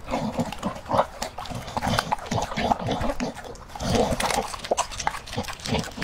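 Dog chewing and chomping on a chunk of raw ostrich heart held in a hand: irregular wet smacks and clicks of jaws and teeth.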